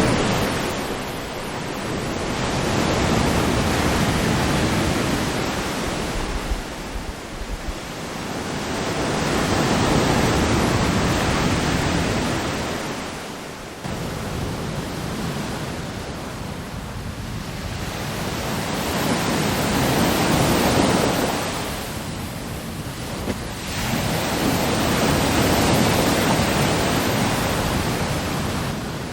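AI-generated ocean surf sound effect: waves breaking and washing in, swelling and fading in slow surges several seconds apart, with an abrupt jump in level about halfway through where one clip gives way to the next.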